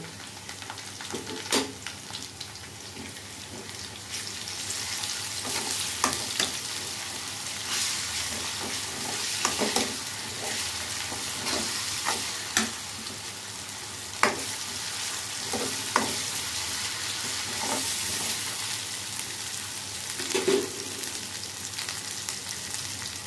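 Sliced onions and ginger-garlic paste sizzling in hot oil in an aluminium kadhai, the sizzle growing louder a few seconds in. A spoon stirs through them, knocking against the pan now and then.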